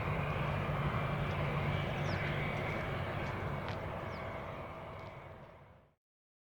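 Antonov An-124's four Progress D-18T turbofan engines running at takeoff power: a steady rumble with a thin high whine, with a few short high chirps over it. The sound fades from about five seconds in and stops near six seconds.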